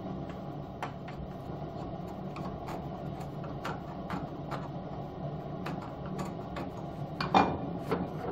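Hand chisel pressed into a small wooden block held in a bench vise, giving scattered sharp clicks as it bites the wood, with a few louder knocks near the end. A steady low hum runs underneath.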